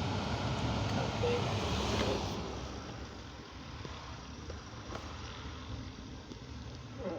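Steady rush of air from a 2009 Holden VE Commodore's climate-control blower over the low hum of the idling engine. The air noise drops off about two seconds in, as the vent doors are being cycled by a scan-tool test.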